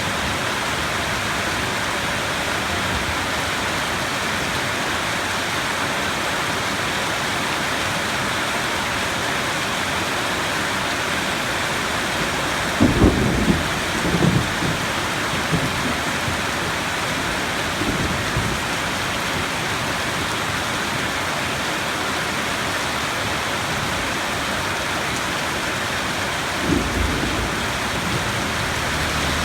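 Steady rain falling hard, with thunder rumbling in several rolls about halfway through and one shorter rumble near the end.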